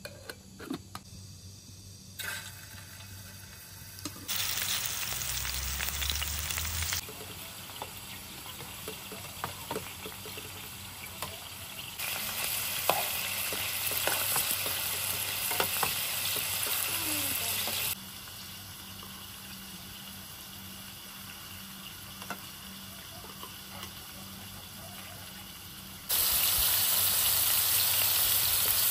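Meatballs sizzling as they fry in oil in a metal pan, with a few light clicks of a metal spoon turning them. The sizzle comes in louder stretches a few seconds long, with sudden jumps in level between them.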